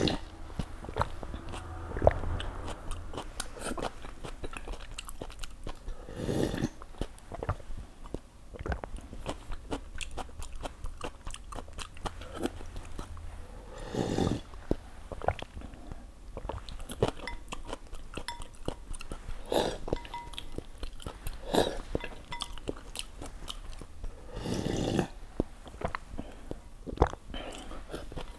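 Close-miked chewing and mouth smacking of a person eating noodles, made of many small irregular clicks. Three short, louder noisy sounds come about a third of the way in, halfway, and near the end.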